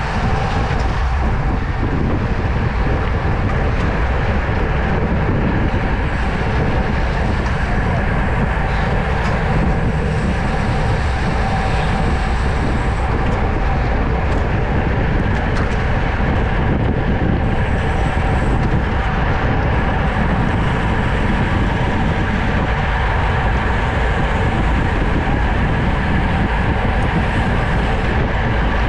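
Wind rushing over a bike-mounted GoPro's microphone at race speed: a steady, loud low rumble that holds without a break.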